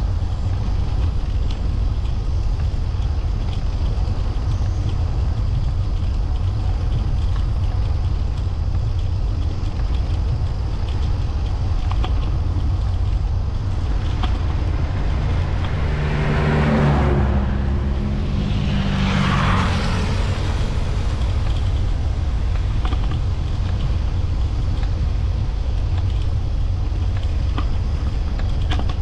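Steady low rumble of wind and riding noise. A motor vehicle passes close by about sixteen seconds in: its engine note and tyre noise swell, then fade away by about twenty seconds in.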